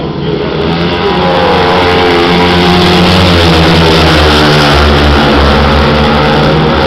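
Several grass-track racing motorcycles running hard through a turn. The engines grow louder about a second in as they come closer, then stay loud with a wavering engine note.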